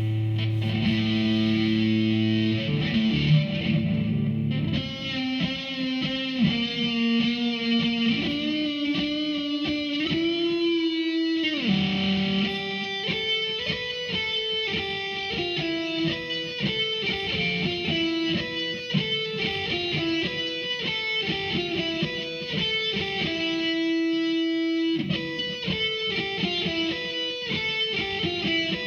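Electric guitar played through a Behringer V-Amp Pro amp-modelling processor on a distorted amp sound. A held chord rings for about four seconds, then a lead line of single notes follows, with a pitch slide about eleven seconds in and a longer held note near the end.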